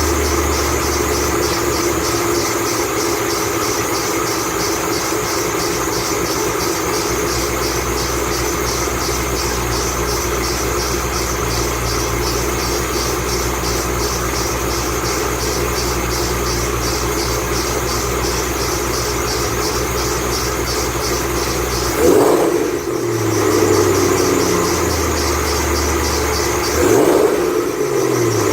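2008 Ford Mustang Bullitt's 4.6-litre V8 idling, with a fast, even, high-pitched chirping from the squealing 8-rib serpentine belt over it. The throttle is blipped twice near the end, the revs rising briefly each time and settling back.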